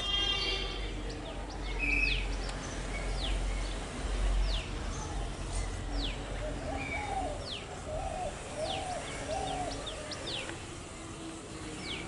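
Wild birds calling: sharp, high notes that slide downward, repeated every second or so throughout, with a run of four lower, rising-and-falling notes in the middle.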